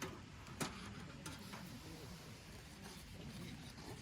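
Sharp clicks and pops at irregular intervals, the loudest about half a second in, from diced chicken thigh grilling over charcoal embers.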